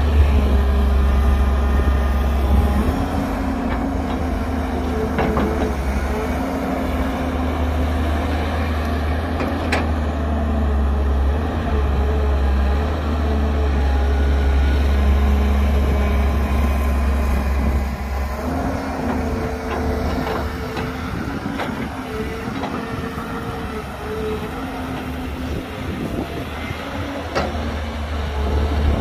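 Heavy diesel engine of an excavator working as it loads a dump truck, a deep rumble whose engine note steps up and down several times as the machine works under load. A few sharp knocks stand out, one about ten seconds in and another near the end.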